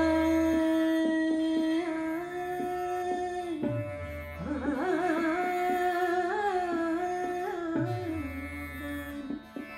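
A woman singing an Indian classical vocal line over a steady drone. She holds long notes and ornaments them with wavering turns in the middle of the passage.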